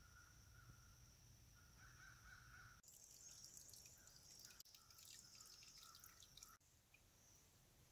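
Near silence: faint woodland ambience with a steady high hum. In the middle there are a few seconds of faint, rapid, high ticking that starts and stops abruptly.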